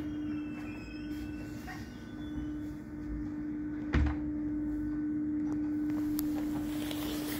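Aerial tramway machinery giving a steady, even hum as the cabin moves slowly through the station. One low thump comes about four seconds in.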